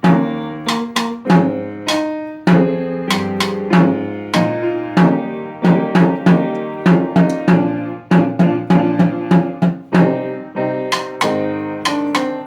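Solo instrumental music: a melody of quick, sharply struck pitched notes, each dying away, in a steady rhythm with fast runs of repeated notes.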